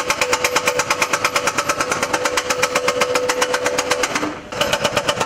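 Excavator-mounted hydraulic breaker hammering its chisel into the road surface: rapid, even blows at about ten a second over a steady whine. It pauses briefly about four seconds in, then starts hammering again.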